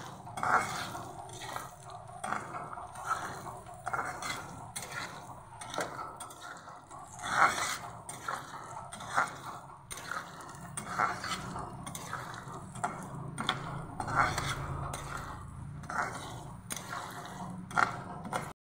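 Steel spatula scraping and clinking against a kadhai as sliced onions are stirred in hot mustard oil, over a light sizzle of frying. The onions are being fried until brown. The sound drops out briefly just before the end.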